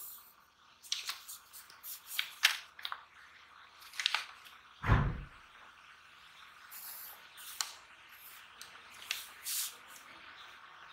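Pencil scratching in short strokes along a plastic ruler on graph paper, with light clicks and taps as the ruler is shifted and set down, and one low thump about five seconds in.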